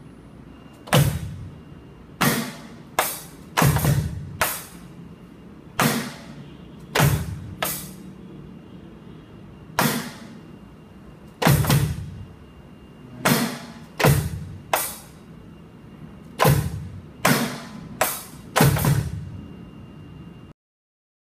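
Electronic drum kit played in single, spaced-out hits, about eighteen in all at uneven gaps of roughly half a second to two seconds. Each hit is a low drum thud with a bright ring that dies away quickly. The sound cuts off suddenly near the end.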